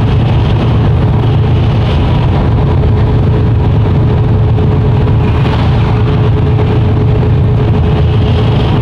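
Steady in-cab noise of a Mercedes-Benz Actros truck cruising on a wet motorway. A low engine drone mixes with tyre hiss from the wet road, and a faint steady whine sits above them.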